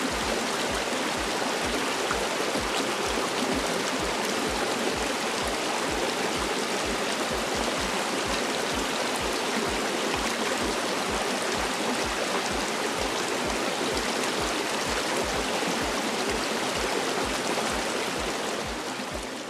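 Borden Brook running over rocks: a steady rush of flowing water that fades away at the very end.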